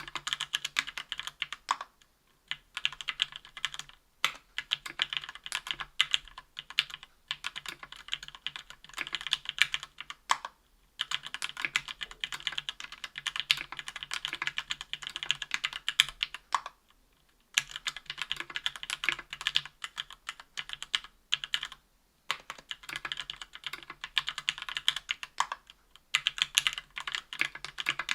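Typing on a KBDfans Tofu 60% aluminium mechanical keyboard with lubed SP-Star Nana 65 g linear switches, an aluminium plate and GMK keycaps. Fast runs of keystrokes come in bursts, broken by short pauses a few times.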